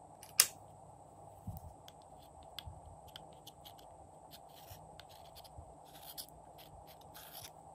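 A thin metal spatula scraping and clicking against the inside of a small plastic makeup jar as pink gloss is scooped out, in faint scratchy strokes. One sharp click comes about half a second in.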